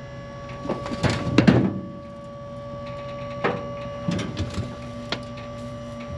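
Hydraulic lift of a tilted dump trailer bed running with a steady whine, while the load scrapes and knocks as it slides out. The scraping is heaviest between one and two seconds in, then comes as a few single knocks.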